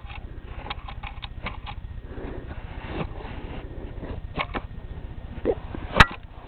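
Light scattered clicks and brief rustles from a cat playing and scrabbling close to the microphone, with one sharp click about six seconds in, over a steady low hum.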